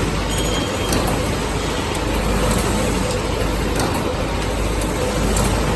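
Cup-type instant noodle packaging machine running: a loud, steady mechanical noise with a faint hum and occasional light clicks.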